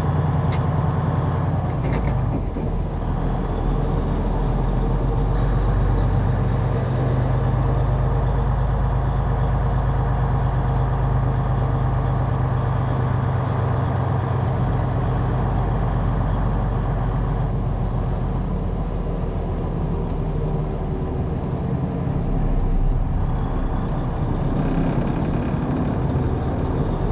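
Semi truck's diesel engine running steadily at low speed, a continuous low drone.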